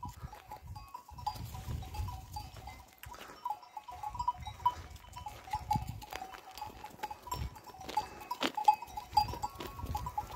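Small bells on grazing sheep tinkling irregularly as the flock moves along, with low rumbles underneath and one sharp click near the end.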